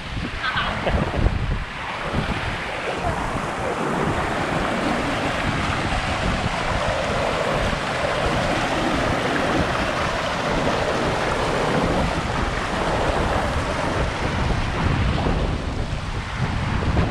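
Steady rushing of a mountain stream cascading over rocks, with wind buffeting the microphone in the first and last couple of seconds.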